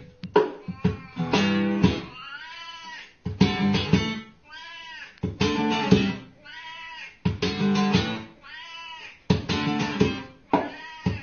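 A cat meowing in the pauses between strummed acoustic guitar chords, about four drawn-out meows that rise and fall in pitch, each answering a burst of strumming.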